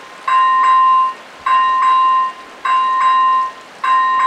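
Level crossing warning bells of an AŽD 97 crossing ringing. Each cycle is a pair of bell strokes followed by a ringing tone, repeating about every 1.2 seconds, signalling that a train is approaching.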